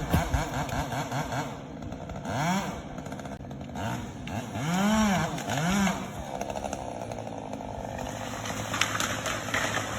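Chainsaw revved up and let back down several times, its pitch rising and falling with each burst of throttle, then running more evenly for the last few seconds.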